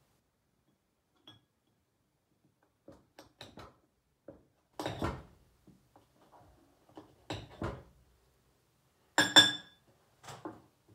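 Knife cutting a hard chilli toffee on a ceramic plate: scattered clicks, knocks and scrapes of the blade against the plate, the loudest a brief ringing clink about nine seconds in.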